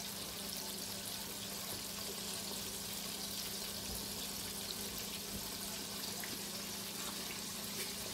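Chicken leg and thigh pieces deep-frying in a pot of hot oil: a steady sizzling hiss.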